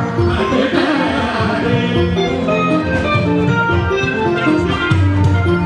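Live Fuji band music: a man singing into a microphone over drums and held instrumental notes.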